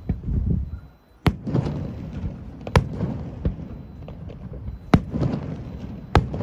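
Fireworks display: four loud sharp bangs of exploding aerial shells, one to two seconds apart, with smaller pops and a rolling rumble of echo between them.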